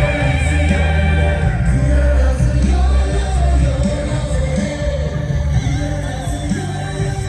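Loud music with a sung vocal line held on long notes with vibrato, over a heavy bass.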